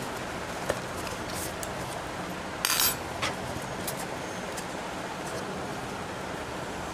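Paper takeaway food box being pulled open and crinkled, with a short ripping rustle about three seconds in and a few light clicks, over a steady background hiss.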